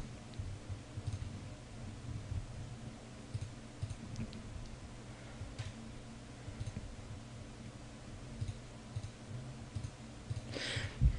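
Faint clicks of a computer mouse over a low steady hum, with a short louder noise near the end.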